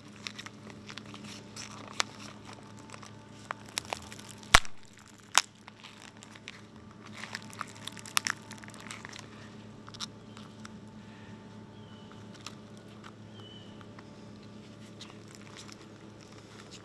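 Spiny lobster head shell being pried and broken open by hand and knife: scattered cracks and crunches, the loudest a sharp crack about four and a half seconds in, over a faint steady low hum.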